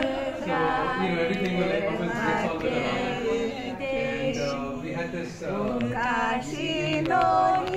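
Voices singing a Japanese song together from a handwritten lyric sheet, the notes long and sliding, a lower voice under a higher one.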